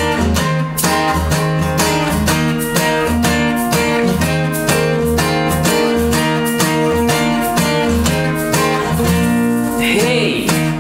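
Several acoustic guitars strumming a steady, rhythmic intro together. A male voice starts singing near the end.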